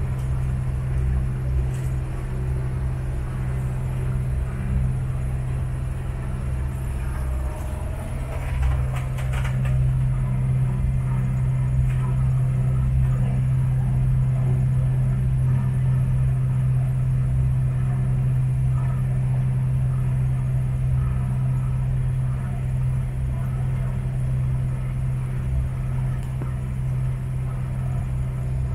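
Saga 27 AC motorboat's engine running at a steady speed, a constant low drone. A brief noise rises over it about nine seconds in.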